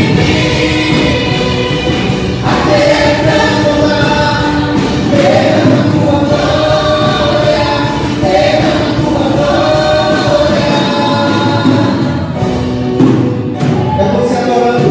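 Gospel worship music: a choir singing a slow, sustained melody over instrumental accompaniment.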